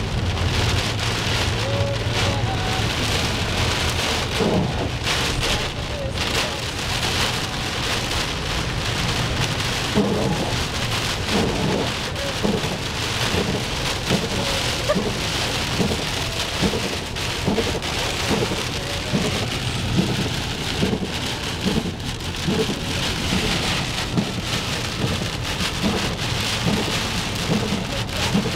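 Heavy rain pelting the windshield and roof of a car, heard from inside the cabin, over a steady low rumble.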